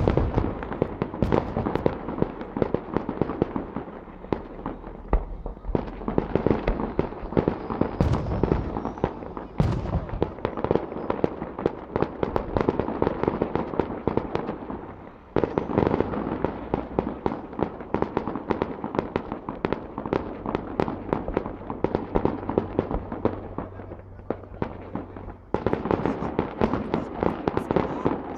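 Aerial fireworks bursting in a rapid, unbroken barrage of bangs and crackle.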